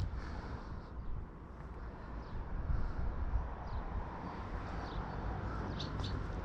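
Outdoor ambience: a low steady rumble with a few faint, short bird chirps, one in the middle and a pair near the end.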